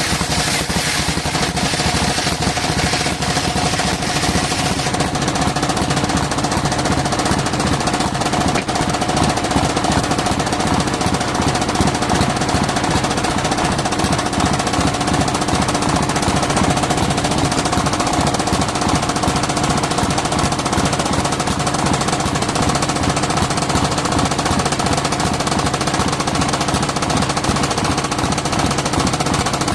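Engine-driven circular saw at a sawmill running continuously, with a rapid, even knocking beat under a steady whine; the high hiss eases about five seconds in.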